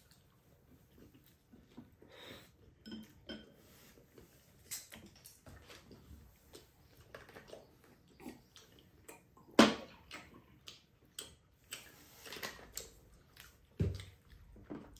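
Tableware at a meal: scattered light clicks and knocks of chopsticks, plates and mugs on a table. There is one sharp clink about two-thirds of the way through and a dull knock near the end.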